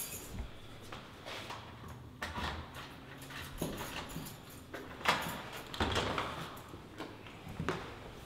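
An apartment door being unlocked and opened by hand: a run of irregular clicks, knocks and rattles from the key, lock and handle, with rustling in between and the loudest knocks about five to six seconds in.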